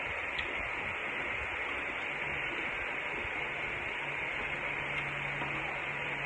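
Steady static-like hiss, with a faint low hum joining about two seconds in and a couple of faint clicks.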